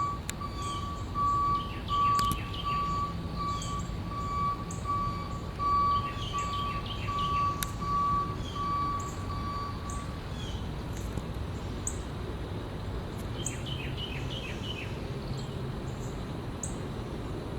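Birds calling outdoors: a high note repeated steadily for about the first ten seconds, with bursts of quick chirps now and then, over a faint steady low rumble.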